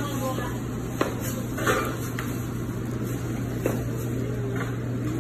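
Utensils and food containers clinking and clattering at a meal, with a few sharp clicks (about a second in, near two seconds and near four seconds), over a steady low hum.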